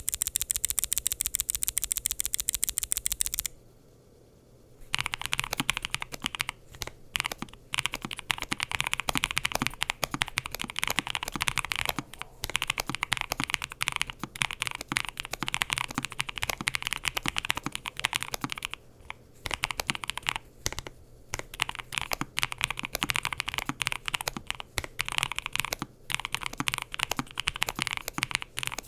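Typing on a NuPhy Air75 v3 low-profile mechanical keyboard with Red Nano switches and PBT keycaps. It opens with a fast, even run of key strikes for about three and a half seconds, then after a short pause goes into steady typing with brief breaks.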